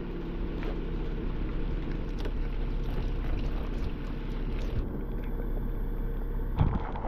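Steady wind buffeting the microphone, a low rumbling noise, with a brief knock near the end.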